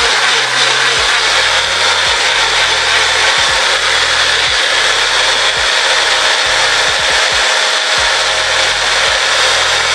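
Electric blender running loud and steady, blending a green smoothie of apple, celery, cucumber and ginger with almond butter.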